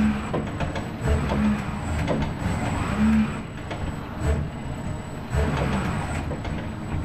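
ABB industrial robot arm's joint motors running in short surges as the arm swings between the paint cups and the canvas. A short low hum recurs about every second and a half over a steady faint high whine.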